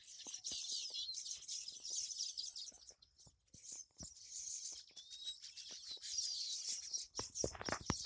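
Baya weaver colony chattering from their hanging nests: many high, overlapping chirps and short trills, with a brief lull about three seconds in. A few soft knocks come near the end.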